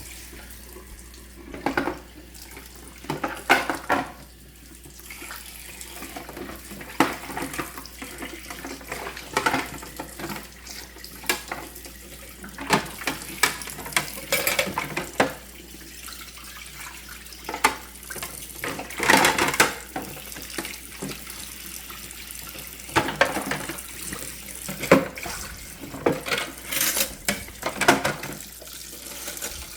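Kitchen tap running into a sink while dishes and cutlery are rinsed, with frequent sharp clatters of dishes knocking against each other and the sink.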